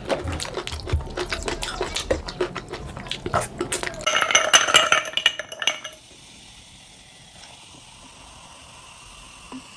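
Clatter of dishes and cutlery during a meal: quick clicks and knocks, then a run of ringing clinks about four seconds in, after which it goes quiet.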